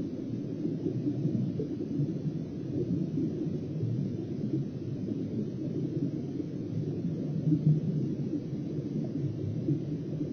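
Steady, muffled low rumble of water and ice picked up by an underwater fishing camera's microphone beneath the ice.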